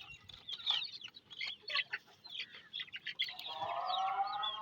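Chickens clucking, with many short high calls. About three seconds in, a call to prayer (azan) begins as one long held note.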